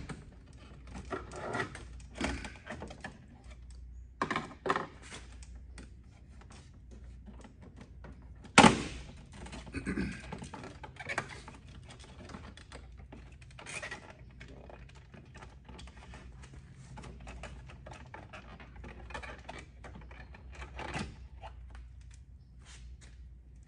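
Plastic BMW kidney grille and its retaining clips clicking, rattling and snapping as the grille is pried and worked loose from the bumper, in an irregular run of small clicks. One much louder sharp knock comes about nine seconds in.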